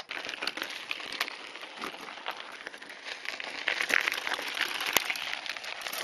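Mountain-bike tyres rolling over a gravel desert track: a steady crackling crunch full of small clicks and pops.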